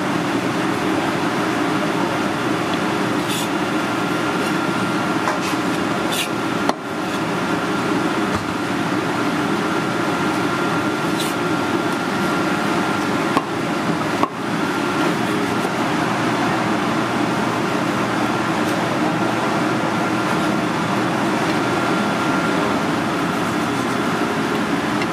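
Steady kitchen ventilation noise with a faint high whine, and a handful of sharp knocks from a cleaver on a wooden cutting board.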